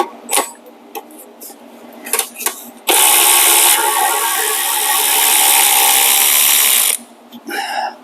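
A few clicks of tools being handled, then a power tool with a 10 mm socket runs continuously for about four seconds, driving a bolt on the Honda Accord, and stops abruptly.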